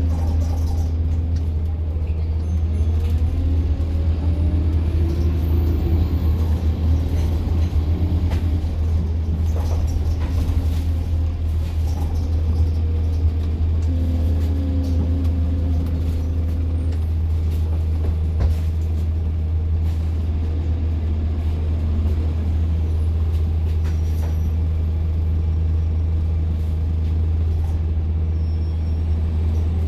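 Bus engine and drivetrain running, heard from inside a moving bus as a steady low rumble. The engine note rises and falls as the bus speeds up and slows, and a few brief knocks come through.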